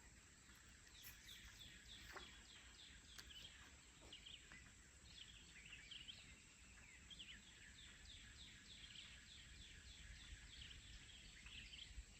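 Faint birdsong: a steady run of short, quick downward-slurred chirps repeating over quiet open-air background, with a few faint ticks.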